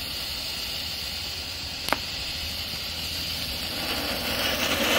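Steady hiss of a coloured smoke cracker pouring out smoke, with one sharp click about two seconds in. Near the end a louder rushing hiss builds as a small tube sparkle cracker, an anar-style fountain, catches and sprays sparks.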